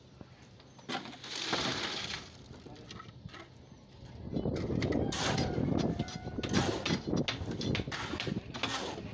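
Wet concrete being worked into wooden stair formwork: rough scraping with many small knocks and clicks. It grows louder and busier about four seconds in.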